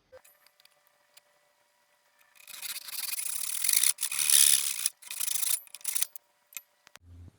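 Wood being worked by hand with an abrasive tool: about three long rubbing strokes through the middle, after a few faint ticks, and a short dull knock near the end.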